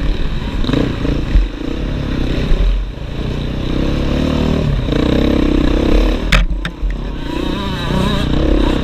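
Enduro dirt bike engine revving up and down under way, with a heavy low rumble of wind and bumps on the mounted camera and a few sharp clattering knocks a little past six seconds in.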